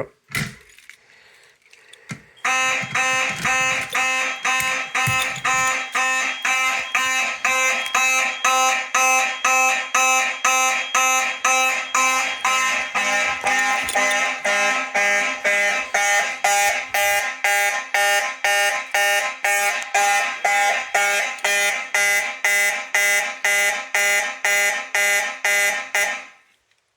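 Fire alarm system's notification appliances sounding together in alarm, several steady tones pulsing about twice a second. They start about two and a half seconds in and cut off shortly before the end, with a short click just before.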